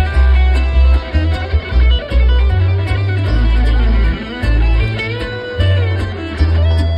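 Live bluegrass band playing through a concert PA: plucked guitar notes over deep, steady bass notes.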